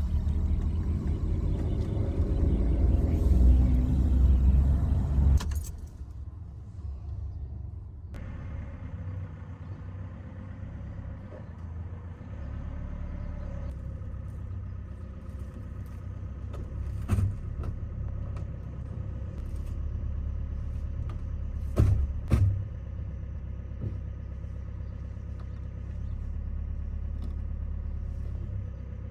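Pickup truck engine running, a loud low rumble for the first five seconds that suddenly drops to a quieter steady hum. A few sharp thuds sound over the hum, one around the middle and two close together later.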